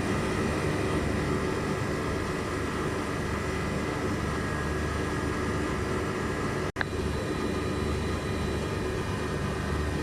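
Window air conditioner running while being charged with refrigerant: a steady hum of compressor and fan with a few steady tones, cutting out for an instant about two-thirds of the way through.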